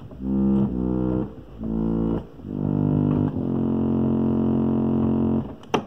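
Chicago Cottage model 555 reed pump organ from the 1890s playing chords on its Diapason stop: a few short chords, then one long held chord. A single sharp click comes near the end.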